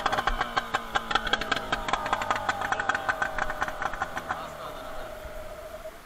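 Yamaha Enduro outboard motor running with a rapid, uneven popping; its note sinks slowly and it fades away near the end.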